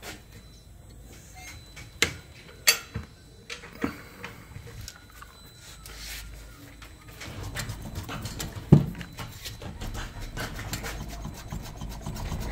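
Hand work on a car's front suspension: a few sharp clicks and knocks, then from about halfway a continuous rubbing, rasping noise with one louder thump a little after that.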